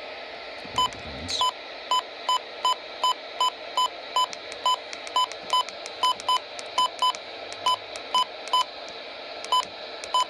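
Front-panel key beeps from an Emergency Alert System unit as its buttons are pressed to set it up: about twenty short, identical high beeps at an uneven pace over a steady hiss. One brief falling squeak comes early in the run.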